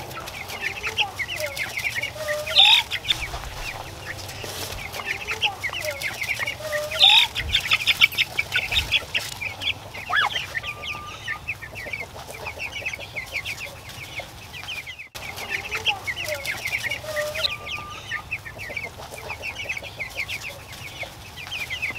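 A flock of month-old Cornish Cross meat chicks peeping, a steady stream of short high cheeps, with a lower drawn-out call now and then.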